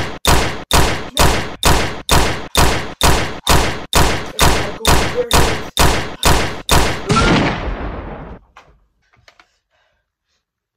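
Rapid, evenly spaced gunfire, about three shots a second, most likely a sound effect laid over the picture. About seven seconds in it ends with one longer blast that fades out over a second or so.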